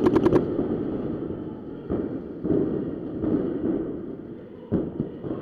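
Paintball marker firing a rapid burst of about six shots right at the start, roughly ten a second. A low rumbling noise follows, with a few dull thumps.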